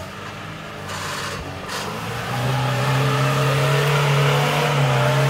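Lada Niva's engine running under load as it drives out of a muddy rut, getting louder from about two seconds in and then holding steady.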